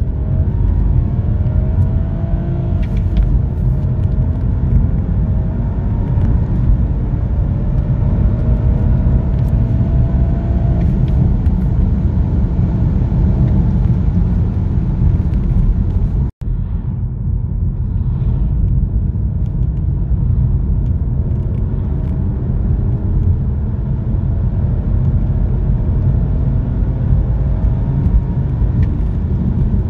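BMW 325i's 2.5-litre straight-six accelerating at full throttle, heard from inside the cabin. The engine note rises through the revs and drops back at each upshift, over heavy road and wind rumble. About halfway it cuts out for an instant, and another full-throttle pull follows.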